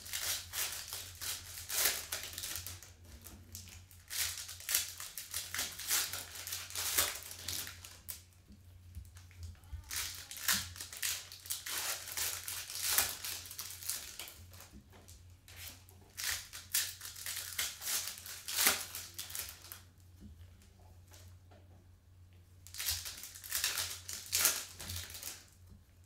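Foil trading-card pack wrappers crinkling and tearing as gloved hands rip packs open, in several stretches of rustling a few seconds long with short quieter pauses between.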